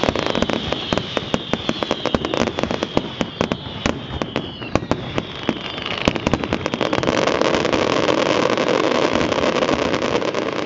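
Fireworks display: a rapid run of bangs and crackles from bursting aerial shells, with whistling tones slowly falling in pitch in the first half. From about two-thirds in, the bangs give way to a dense, steady wash of sound.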